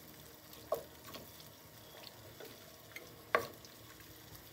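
Wooden spoon stirring a thick berbere-and-tomato sauce frying in a stainless steel pan, over a faint sizzle. The spoon knocks sharply against the pan twice, the louder just past three seconds in, with a few lighter taps between.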